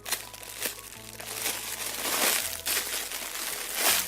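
Crinkling and rustling in several short bursts as a squishy toy is handled, over soft background music.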